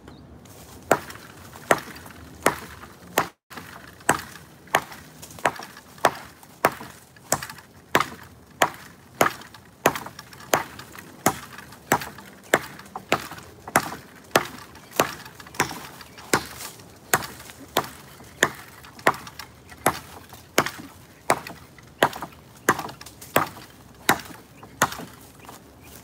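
Machete blade chopping into the wood of a small standing tree trunk, steady repeated strikes at about three every two seconds.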